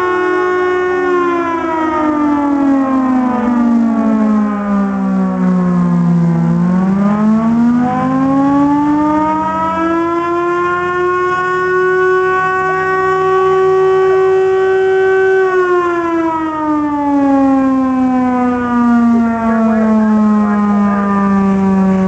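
Air-raid siren wailing. Its pitch slides down over the first six seconds, climbs back up and holds, then slides down again near the end.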